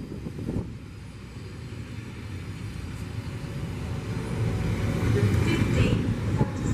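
A train running through the station, its low rumble building steadily to a peak about five to six seconds in.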